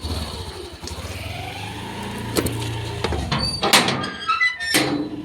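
A metal gate being opened, clanking three times with a brief metallic ring after the louder clanks, over a low steady hum.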